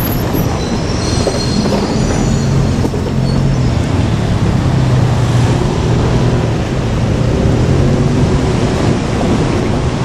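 JR Kyushu KiHa 47 diesel railcars running slowly with a steady diesel engine drone. A thin, high-pitched wheel squeal rises over it for the first few seconds.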